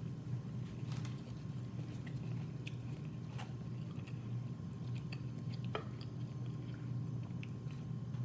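Close-miked chewing and biting, with small wet mouth clicks, from someone eating seafood boil, over a steady low hum.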